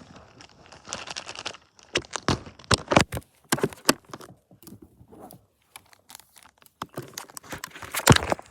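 Keyboard packaging being unwrapped by hand: irregular crinkling and tearing with sharp handling clicks, loudest about two to three seconds in and again near the end.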